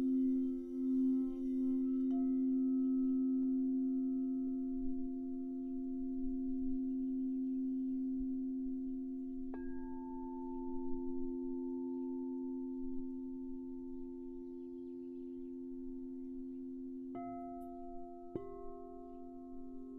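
Crystal singing bowls ringing: two steady low tones that pulse at first, then hold. The bowls are struck again about ten seconds in and twice more near the end, each strike adding a higher tone over the low hum.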